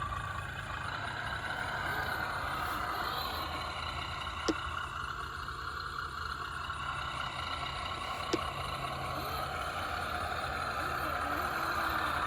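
Electric motor and drivetrain of an Axial SCX10 RC crawler running steadily, with its whine swelling toward the end. Two sharp clicks come through, one near the middle and one about two-thirds of the way in.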